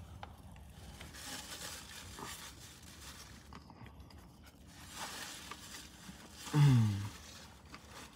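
Close-up chewing of a bite of cheeseburger, soft wet mouth and bun sounds with small clicks, and a short falling vocal "mmm" about six and a half seconds in.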